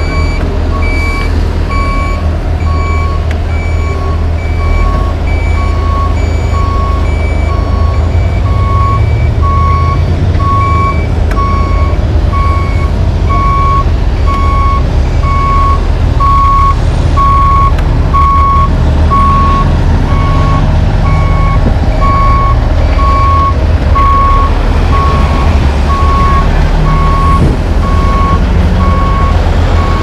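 Backup alarm of a reversing tandem dump truck, beeping steadily about once a second, over the steady low rumble of its diesel engine.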